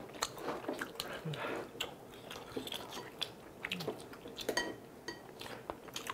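Close-miked eating sounds: chewing and mouth smacks on tteokbokki rice cakes in sauce, with scattered light clicks of metal chopsticks against a ceramic bowl. A brief ringing clink about four and a half seconds in.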